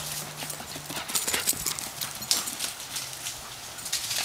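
Irregular footsteps on grass and mulch, a scatter of uneven clicks and scuffs, over a faint low steady hum.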